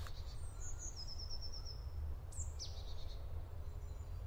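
Forest ambience with small songbirds calling: a quick run of about seven short high notes about a second in, and a falling high call just after two seconds, over a steady low rumble.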